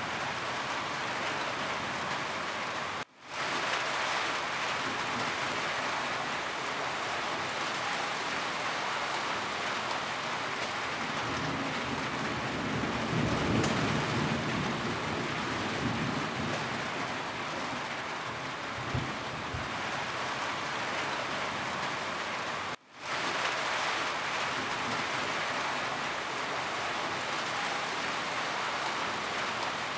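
Steady rain falling on a roof, a dense even hiss. A low rumble swells near the middle, and the sound cuts out for a split second twice.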